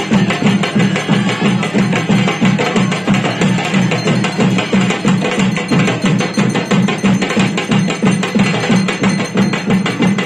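Loud, fast, steady ceremonial drumming with a sharp, clacking beat, the Tamil Hindu temple drumming that accompanies a fire-walk.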